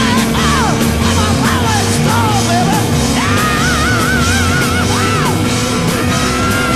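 Rock music: a singer holding wavering notes over a steady drum beat.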